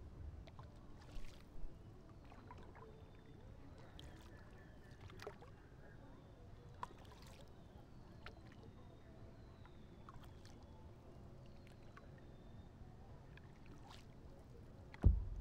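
Quiet paddle strokes in lake water from a stand-up paddleboard, with small scattered splashes, and one sharp thump near the end.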